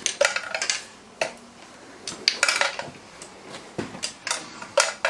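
Irregular metallic clinks and clicks of hand tools and fasteners against metal as nuts are tightened on a gas turbine engine's frame.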